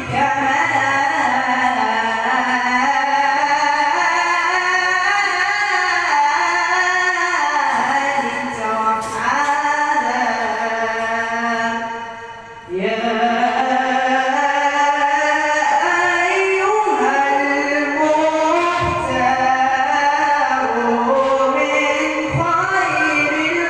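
A man singing an Islamic ibtihal, a devotional supplication in Arabic, in long melismatic phrases whose pitch bends up and down, with a short pause for breath about halfway through before the next phrase.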